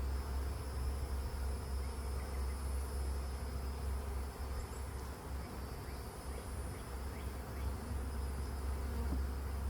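Honeybees buzzing around an open hive, a steady hum, over a steady low rumble.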